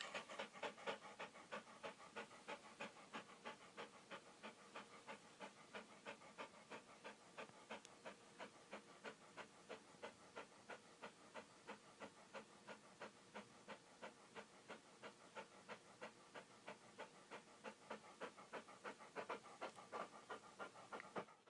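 A dog panting rapidly and steadily, about three to four breaths a second.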